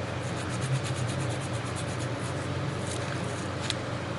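Gloved hands handling and wiping a dirt bike exhaust's metal spark arrestor: faint scrapes and light clicks, with one sharper click near the end, over a steady low hum.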